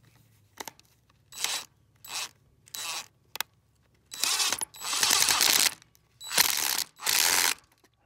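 DeWalt 20V MAX cordless impact driver driving a screw into a wooden frame: three short trigger bursts, then four longer hammering runs in the second half as the screw is sunk flush.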